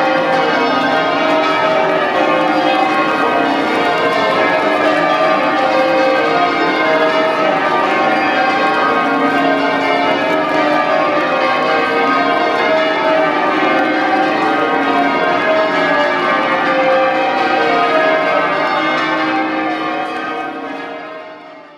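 Church bells of St Paul's Cathedral being change-rung, many bells striking in quick succession, fading out near the end.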